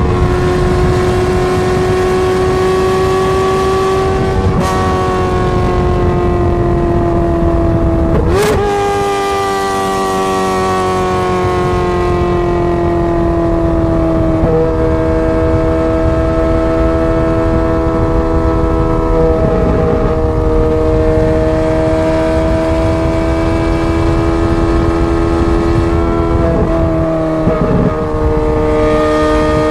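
Ferrari 430 Scuderia's V8 through a straight-pipe exhaust, driving at a steady high note whose pitch drifts slowly. The note breaks briefly several times, with a sharp crack about eight seconds in.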